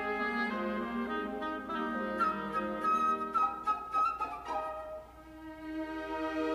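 Orchestral background music: sustained woodwind and string notes, dipping in loudness briefly about five seconds in.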